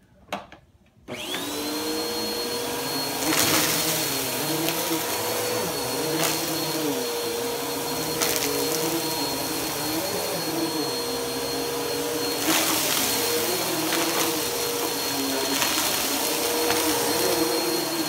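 Bissell PowerForce Helix bagless upright vacuum cleaner switching on about a second in, then running steadily with a high motor whine. Its tone wavers every couple of seconds as it is pushed back and forth over carpet, with a few brief rattles.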